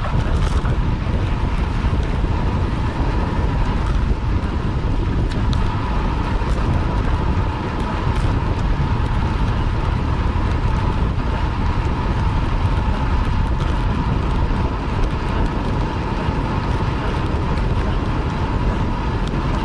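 Steady rush of wind buffeting an action camera's microphone on a bicycle moving at race speed, mixed with road and tyre noise, with a faint steady whine running underneath.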